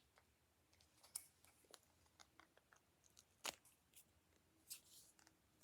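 Near silence with faint, scattered clicks and taps from handling a felt-tip marker and paper, with one sharper tick about three and a half seconds in.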